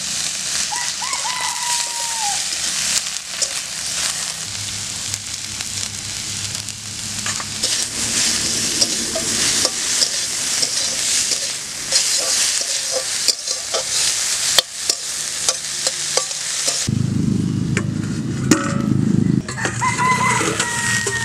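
Leafy greens sizzling as they fry in an aluminium karahi, with a metal spatula clicking and scraping against the pan as they are stirred. A rooster crows briefly about a second in and again near the end, and a low rumble comes in during the last few seconds.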